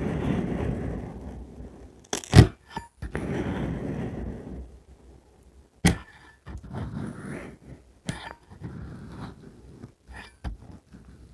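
Colored magic sand being cut and crushed: a grainy crunching in long stretches, loudest in the first half. There are sharp knocks about two and a half, six and eight seconds in.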